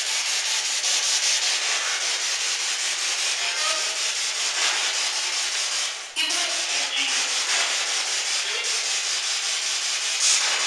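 Spirit box sweeping through radio stations, a continuous hiss of static chopped by the rapid scan. About six seconds in, the hiss drops out briefly and a short garbled voice fragment comes through, which the investigators take for a spirit saying "you don't hit me".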